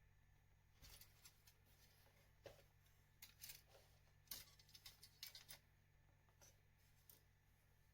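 Faint, scattered small clicks and snips of plastic model kit parts being handled, cut and fitted, bunched in the middle of the stretch, over a steady low hum.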